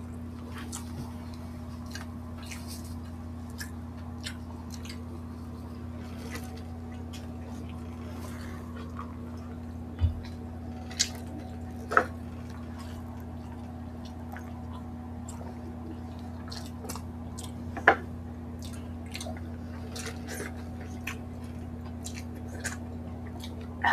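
Close-miked eating by hand: fingers picking at rice in a bowl, chewing and small wet mouth clicks, with a few sharper clicks scattered through. A steady low hum runs underneath.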